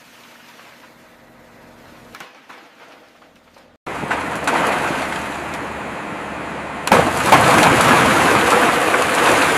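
A faint steady hum, then about four seconds in a sudden loud crash of a severed aircraft wing section coming down: metal crunching and debris breaking apart. It surges louder again about three seconds later.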